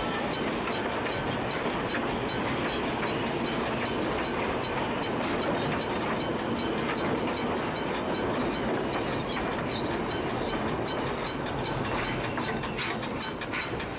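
Puffing Billy Railway's 2 ft 6 in narrow-gauge wooden carriages rolling past close by, their wheels rumbling and clicking over the rail joints. It eases a little near the end as the last wagon goes by.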